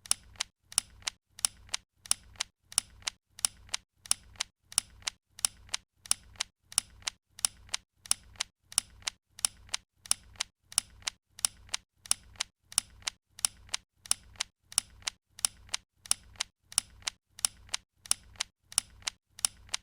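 Switch of an 18V cordless drill clicking over and over: sharp clicks at an even pace, about two to three a second.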